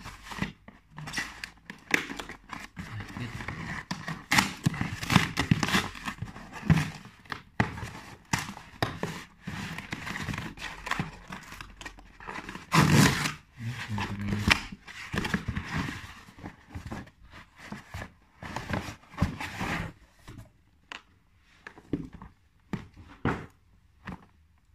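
A cardboard shipping box being opened: a knife slitting the packing tape, then cardboard and paper packing scraping and rustling, with one loud tear about halfway through. In the last few seconds the sound thins to a few sharp knocks and taps.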